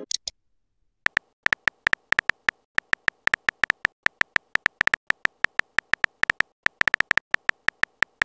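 Phone keyboard typing sound effect from a texting-story animation: quick, uneven pitched clicks, several a second, one per letter typed. They start about a second in, after a short high blip at the start.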